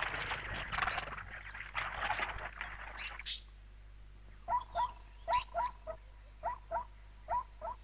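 Blue wildebeest calves bleating: short, high calls that slide upward, often in quick pairs, from about four and a half seconds in. This is the plaintive location bleat of calves separated from their mothers. Before the calls, a noisy jostling sound from the herd crowding at the water.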